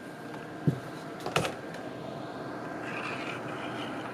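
A dull thump, then a sharp knock about a second later, over steady low background noise.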